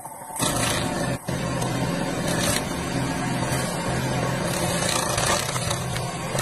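Dig-Boy skid steer loader's engine running steadily under load while its stump crusher attachment grinds through wood, with a brief dropout about a second in.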